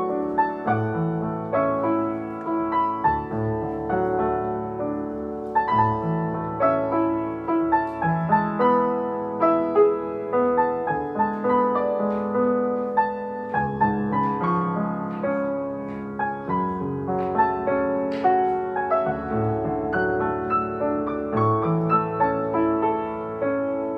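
Background piano music: a gentle melody of single notes over chords.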